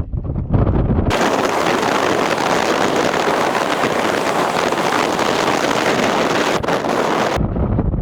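Speedboat running through a storm, with strong wind buffeting the microphone. About a second in, the sound switches abruptly to a loud, even rushing hiss. Near the end the low wind rumble returns just as suddenly.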